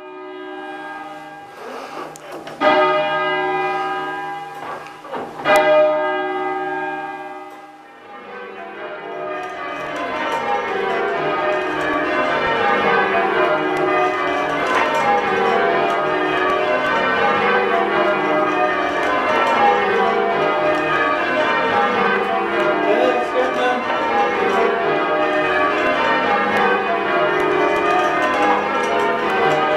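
A ring of eight church bells, cast by John Taylor in 1913 with an E-flat tenor. First the tenor is turned over on its own: two loud strokes about three seconds apart, each ringing on. From about eight seconds in, the other bells join in full-circle change ringing, a rapid, even succession of strokes that carries on steadily.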